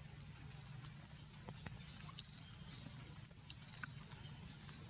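Steady rain hiss with scattered drops ticking irregularly on nearby surfaces.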